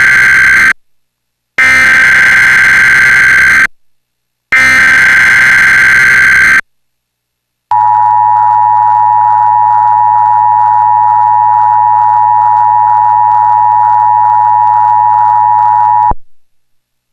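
Emergency Alert System tones from a TV broadcast. First the end of one SAME digital header burst, then two more bursts of about two seconds each with short gaps. About eight seconds in comes the screeching two-tone attention signal (853 and 960 Hz together), held steady over a low hum for about eight seconds before it cuts off suddenly.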